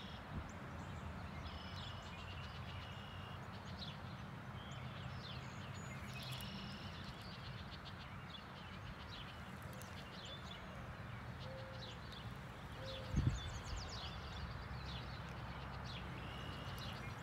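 Small birds chirping and calling over a steady low rumble, with one dull knock about thirteen seconds in.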